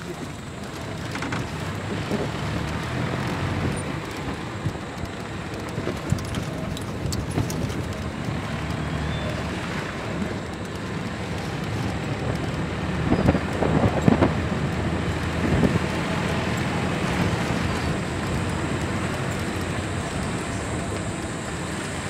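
Safari vehicle driving along a dirt forest track: steady engine and road noise, with a spell of louder knocks and rattles from bumps a little past the middle.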